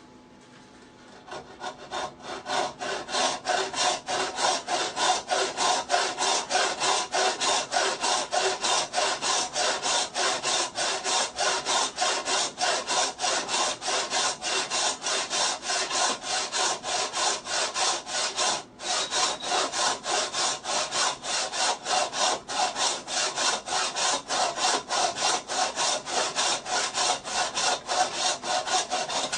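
Hand saw cutting wood with steady back-and-forth strokes, about two to three a second, starting shortly in, with one brief pause about two-thirds of the way through.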